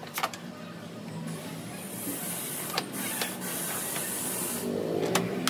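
A screwdriver working a screw behind a plastic scooter body panel: a few sharp clicks of metal tool on screw and plastic. A steady hiss runs through the middle.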